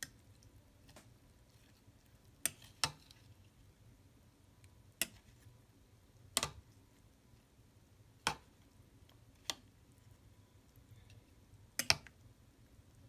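Metal spoon clinking against the side of a glass bowl while stirring a milky fruit dessert: about eight sharp clinks at irregular intervals, two of them close together near the end.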